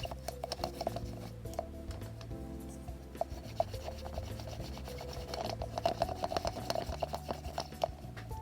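Quick, repeated rasping strokes of a defuzzing tool drawn across a plush toy's fabric to remove bobbles, over background music.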